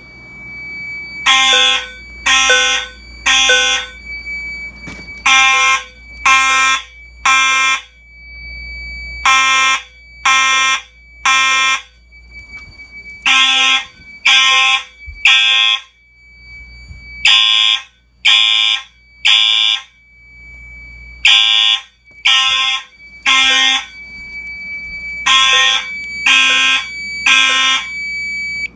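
Fire alarm horns sounding in the temporal-3 evacuation pattern after a pull station is pulled: sets of three short, loud blasts about a second apart, with a pause of about two seconds between sets. A steady high tone carries on between the blasts.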